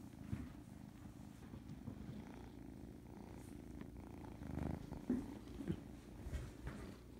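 Cat purring steadily in a low, continuous rumble, with a few brief louder noises a little past the middle.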